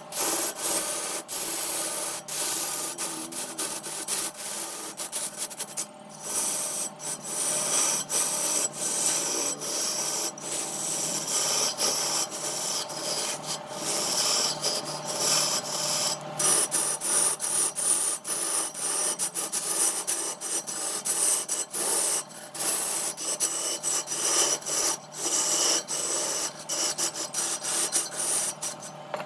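A turning tool scraping and cutting wood spinning on a lathe: a rough rasping noise broken by many short gaps as the tool comes on and off the wood, over a steady hum.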